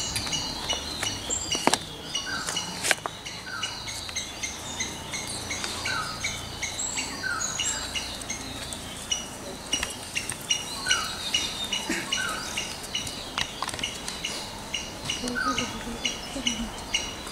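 Birds calling in the trees: a steady chatter of short high chirps, with a lower two-note call repeated every few seconds. A couple of sharp clicks sound in the first few seconds.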